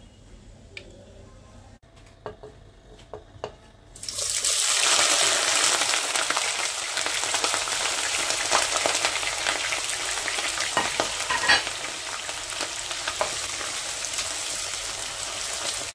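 Sliced onions hitting hot oil in a nonstick pot: a loud sizzle starts suddenly about four seconds in and keeps going as they fry, with light taps and scrapes of a plastic slotted spatula stirring them. A few soft clicks come before the onions go in.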